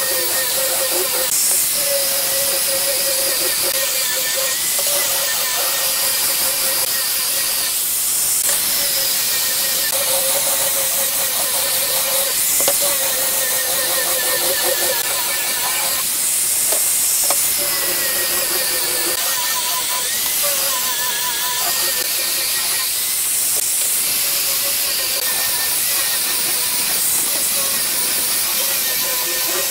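Angle grinder with a sanding disc running continuously and sanding a wooden board: a steady hiss of abrasive on wood under a motor whine that wavers in pitch.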